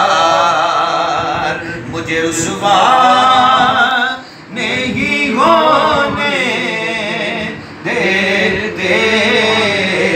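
A man's voice singing a naat without instruments, in long wavering melismatic phrases with two short breaks for breath.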